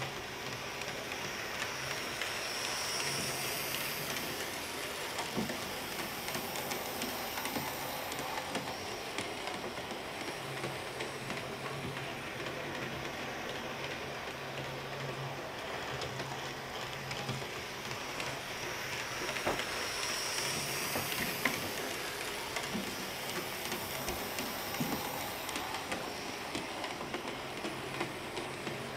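Märklin BR 74 HO-scale model steam locomotive running laps of an oval of track: a steady whir and rattle of its electric motor and wheels on the rails, swelling and fading as it goes round.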